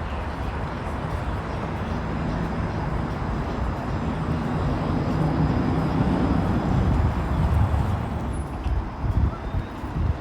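Street traffic with a vehicle passing close by: a low hum builds through the middle and fades near the end over a steady rumble.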